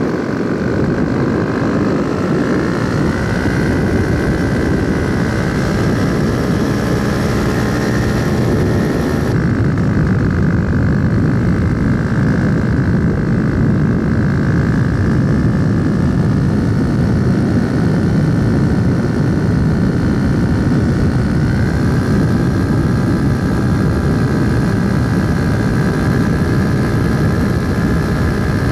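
Propeller aircraft engine running steadily in flight, loud and close, its tone drifting slightly in pitch. About nine seconds in, the hiss in the upper range drops suddenly.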